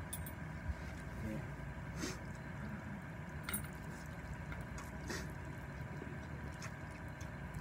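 A person slurping and chewing mouthfuls of spicy instant noodles, with short wet slurps about every second and a half.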